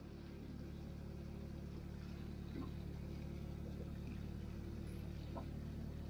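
Steady low machine hum with several even tones, with a few faint light clicks from handling food in a skillet.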